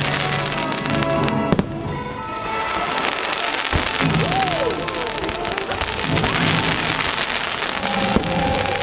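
Fireworks crackling and popping in a dense, continuous sizzle, with sharp bangs about one and a half seconds in, near four seconds and near the end, over the show's music.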